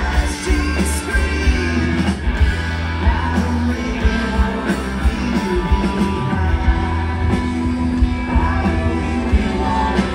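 Live rock band playing, with electric guitar and a singing voice over a steady beat.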